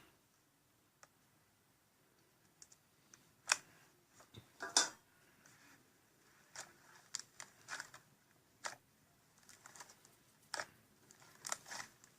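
Faint, scattered clicks and crackles of slime being pressed and poked, played back from a slime ASMR video on a big screen; the two loudest pops come about three and a half and five seconds in.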